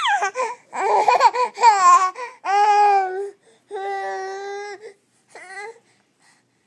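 A baby yelling: a run of loud, quickly changing cries, then two long held shouts on one pitch and a last short call, fading to quiet about six seconds in.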